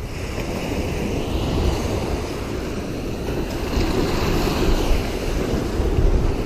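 Wind rumbling and buffeting on the microphone over a steady rushing noise of water.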